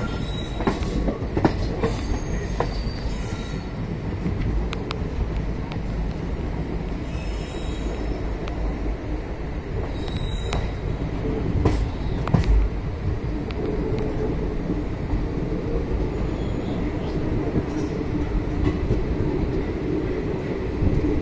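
Passenger train rolling slowly out of a station yard, heard from beside a coach: a steady rumble of wheels on rails with sharp clanks as the wheels cross points. In the second half a wavering wheel squeal joins in as the coaches take the curving turnouts.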